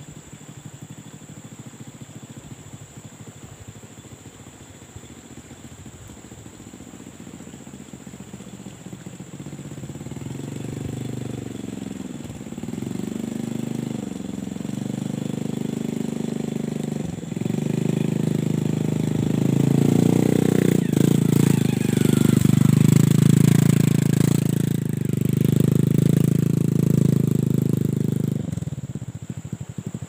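Trail motorcycle engine at low speed, its revs rising and falling as the rider throttles over a rough plank bridge. It grows steadily louder as it approaches, is loudest in the last third, then falls away sharply near the end as it passes by.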